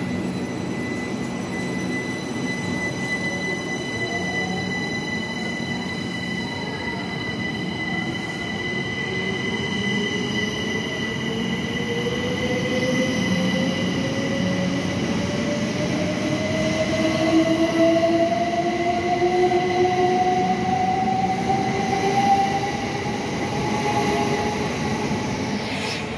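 Southern Class 377 Electrostar electric multiple unit pulling away from a platform. Its traction motors whine, rising steadily in pitch as the train accelerates, over the rumble of the wheels on the rails.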